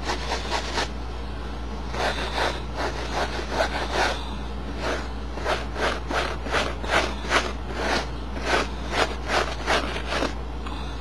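Wire scrubber rubbed hard back and forth across denim jeans to fray and distress the fabric: quick, rhythmic scraping strokes, about three a second, with a short pause about a second in.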